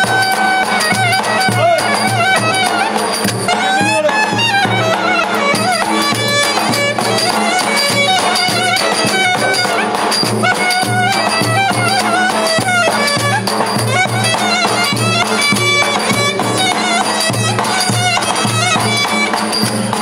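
Live Turkish folk music played on clarinet and davul: a wavering, ornamented clarinet melody over a steady bass-drum beat.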